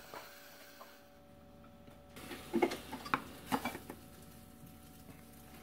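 A few light knocks and clinks of dishes being handled on a table, bunched together about halfway through, over a faint steady hum.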